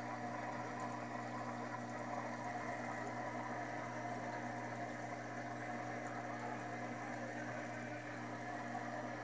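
Aquarium pump humming steadily, with water bubbling in the tank.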